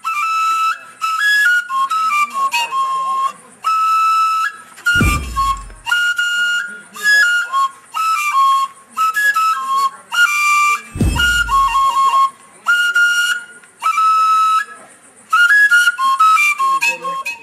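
A flute playing a melody of short, stepped high notes in phrases with brief pauses. Two deep thuds come about five and eleven seconds in.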